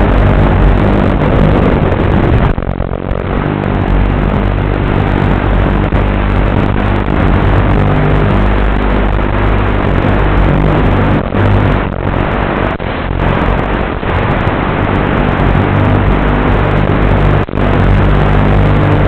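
FPV flying wing's electric motor and propeller heard from on board: a loud, rough, steady drone mixed with the rush of air. It dips briefly about two and a half seconds in, and again a few times in the middle and once near the end.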